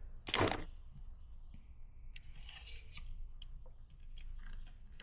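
Faint clicks and light scraping as stripped speaker-wire ends are worked into a car door speaker's terminals. A short, louder rustle comes about half a second in.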